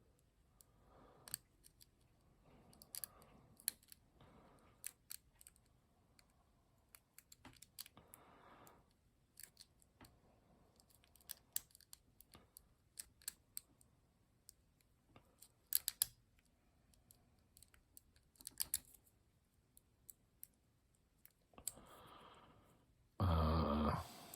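Lock picking in a small Castle lock: irregular light clicks and scrapes of the pick and tension wrench working the pins, with no opening yet. A short, louder vocal sound, like a sigh, comes near the end.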